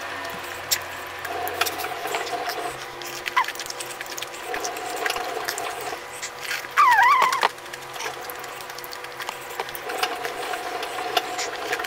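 Close-up eating sounds: chewing and fingers picking sticky papaya pieces out of a sambal-coated stone mortar, with scattered small clicks over a faint steady hum. About seven seconds in, a short wavering high-pitched cry or squeal is the loudest sound.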